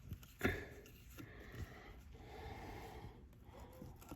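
A person breathing close to the microphone: a sharp nasal sniff about half a second in, then soft breaths, with a few faint clicks.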